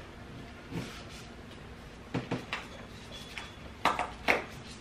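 Hands pressing and smoothing a self-adhesive closed-cell foam insulation liner onto the inside of a car's trunk lid: scattered short rustles and soft knocks against the panel, the two loudest a little before the end.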